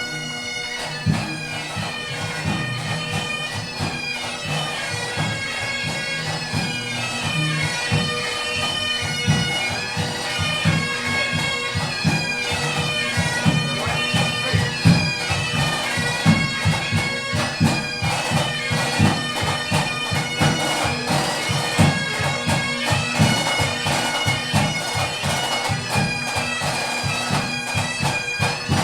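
A pipe band playing: bagpipes holding a steady drone under the melody, with drums beating throughout.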